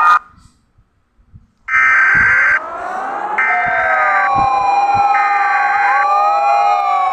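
After about a second and a half of silence, several sirens wind up together, rising in pitch and overlapping, then hold and waver. Three long, steady tones, each just under a second, sound over them at roughly even spacing.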